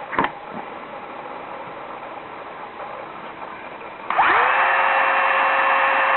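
Thomas & Betts TBM6BSCR battery-hydraulic crimper: a sharp click just after the start, then about four seconds in its pump motor starts with a quick rising whine and runs at a steady pitch, driving the crimp head through a cycle with no lug in the dies.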